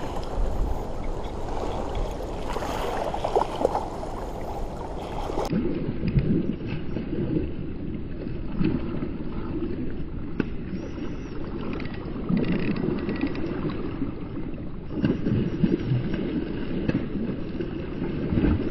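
Water sloshing and gurgling, with irregular small bumps; the sound turns duller about five seconds in.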